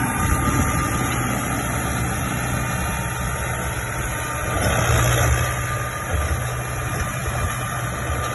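Tractor diesel engine running steadily as it drives a rear-mounted mulcher chopping dry crop trash, the sound swelling a little about five seconds in.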